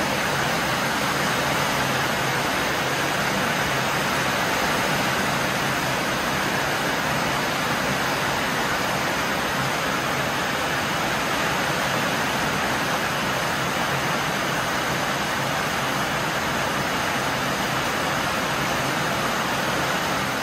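Heavy rain pouring steadily onto a corrugated metal roof and streaming off its edge.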